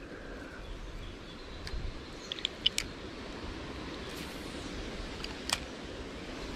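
Steady outdoor background noise with a few sharp clicks and ticks: a quick cluster of them a little over two seconds in, the loudest, and single ones near the middle and about five and a half seconds in.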